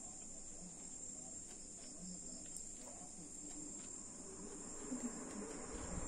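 Atomberg Renesa+ BLDC ceiling fan spinning up after switch-on, running very quietly, under a faint steady high-pitched whine. Near the end the fan's draught starts to rumble on the microphone and grows louder.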